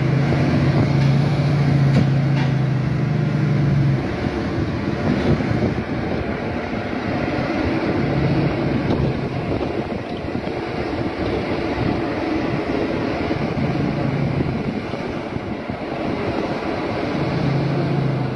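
Caterpillar C15 Acert diesel engine of a Kenworth W900L heavy-haul truck running, with a dense continuous rumble. A steady low hum is strong for the first few seconds and comes back briefly several times.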